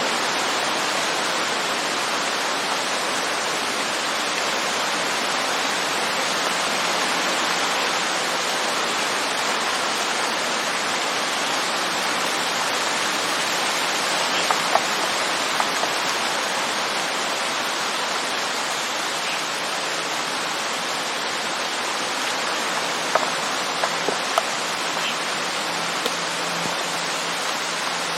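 Heavy rain falling on woodland leaves, a steady dense hiss. A few sharp drips of water hitting wood stand out about halfway through, with a small cluster of them near the end.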